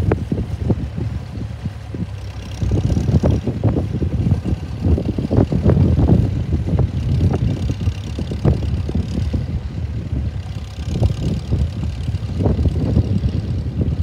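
Vintage grey Ferguson tractor's engine running under load as it pulls a mounted plough through the soil.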